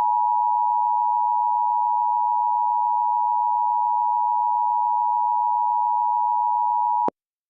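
Emergency Alert System attention signal: a loud, steady two-tone alert tone that cuts off suddenly about seven seconds in. It signals that an emergency voice message follows.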